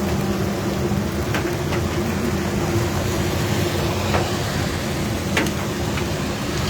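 Rain and hail pelting a car in a steady hiss, with a few sharp hits of hailstones. Under it runs the car's steady low hum.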